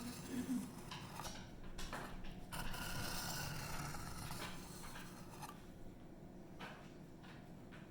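A chisel-ground 154CM steel knife blade scraped across a diamond sharpening stone in irregular strokes about a second apart, fainter in the second half, raising a burr on the edge.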